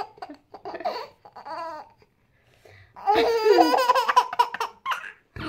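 Baby laughing: a few short laughs, then after a pause a louder, longer run of laughter about three seconds in.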